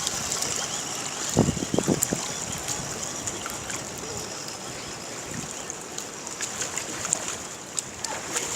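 Steady water noise, rushing and lapping, around a radio-controlled model trawler on the water, with a few short louder sounds about a second and a half to two seconds in.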